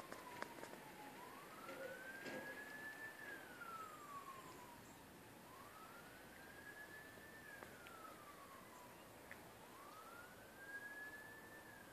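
Faint emergency vehicle siren in a slow wail, its pitch rising, holding briefly at the top and falling again about every four seconds.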